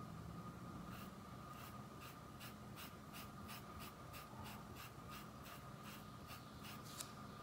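Wide flat paintbrush stroking white fabric paint onto cloth: faint, scratchy brush strokes, about three a second, starting about a second in.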